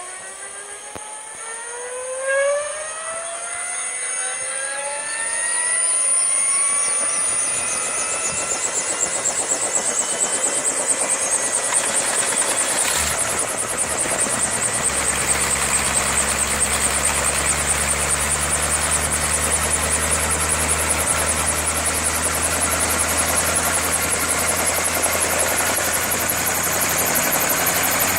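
Helicopter turbine engine starting up: a whine climbs steadily in pitch for about ten seconds, then holds at a high, steady pitch. About thirteen seconds in, a low rumble with a fast regular pulsing joins it as the engine comes up to running speed.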